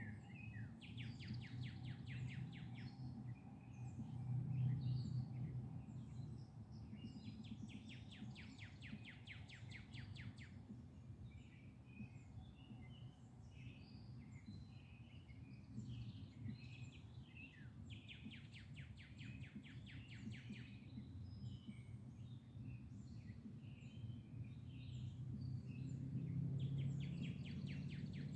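Birdsong: a songbird's rapid trill of about two to three seconds repeats four times, with scattered short chirps from other birds between. Under it a faint, steady low rumble swells a little about five seconds in and again near the end.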